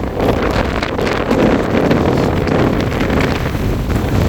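Strong wind buffeting the microphone: a loud, gusty rumble and roar with no steady tone.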